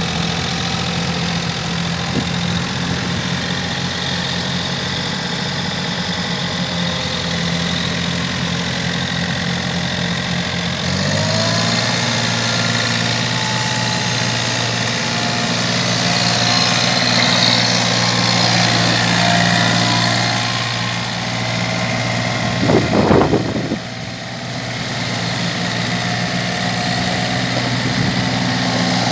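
John Deere 4310 compact tractor's three-cylinder diesel engine running steadily as the tractor is driven, its speed stepping up about a third of the way in. A few sharp knocks stand out near the end.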